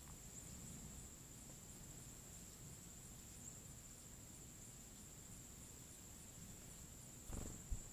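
Faint, steady, high-pitched insect trill, cricket-like, pulsing a few times a second, with a few faint short chirps over it. A low thump comes near the end.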